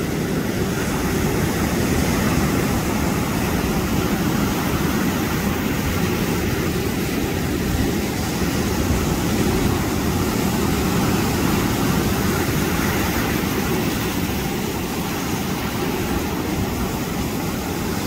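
Heavy sea surf: waves breaking and foaming up the shore in a steady low rush of water that swells gently and never stops.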